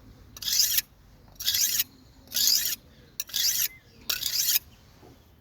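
Blade being sharpened on a sharpening stone: five light, even strokes along one side of the edge, about one a second, each a dry scraping rasp.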